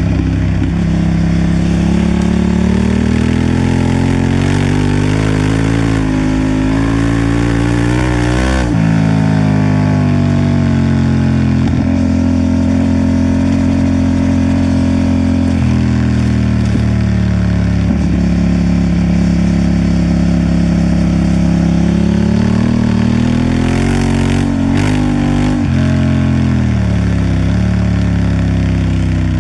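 Honda Transalp XL750's parallel-twin engine under way, its revs climbing and falling several times. There is a sharp drop in revs about eight seconds in and another fall near the end.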